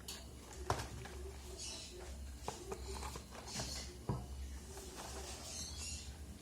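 Handling of a smartphone and its packaging: a few light knocks and short rustles, over a steady low hum.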